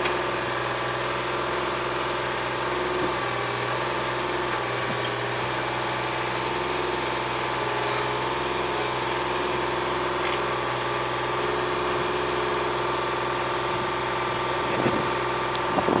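Yanmar YB251 mini excavator's diesel engine running steadily under hydraulic load as the boom and bucket dig into a gravel pile. A few short knocks sound near the end.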